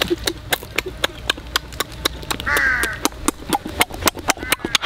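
Close-up eating sounds: wet chewing and lip-smacking on roast duck, several sharp smacks a second. About two and a half seconds in, a short harsh call stands out.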